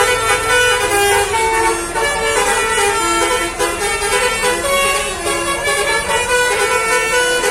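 Bus telolet horn (Basuri) playing a melody: a string of held horn notes stepping up and down in pitch, one after another without a break.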